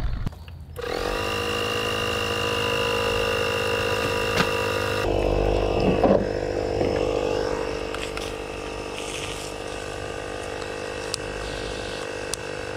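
Kobalt mini air compressor starting about a second in with a short rising whine, then running steadily as it pumps air into a PVC rooftop water tank to pressurize it.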